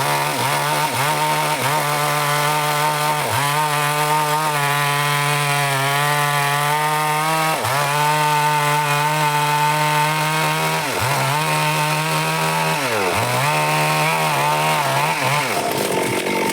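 Chainsaw running at high revs while cutting wood, its engine note steady with short sharp dips in pitch several times as the chain bites into the wood. The steady note breaks up near the end.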